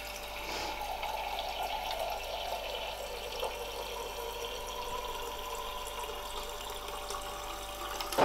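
Water streaming from a refrigerator door dispenser into a drinking glass held against the paddle, with a steady hum underneath; a click right at the end.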